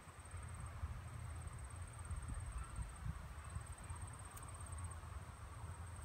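Outdoor ambience: a low, uneven rumble on the microphone, with a high, steady insect trill running throughout. The snake swallowing the frog makes no audible sound.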